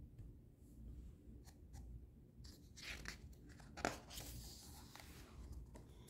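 Faint rustle of a large hardcover picture book's paper page being turned and pressed flat by hand, with a small click about four seconds in.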